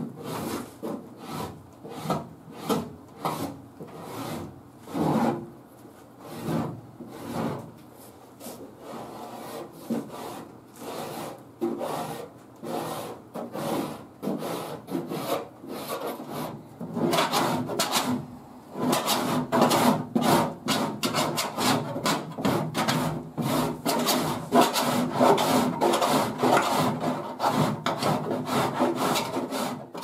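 Body filler being shaved by hand with a cheese-grater file (a Surform-type rasp), rough-shaping the filler over a wheel arch with repeated scraping strokes. The strokes are spaced out in the first half, then come quicker and louder a little past the middle.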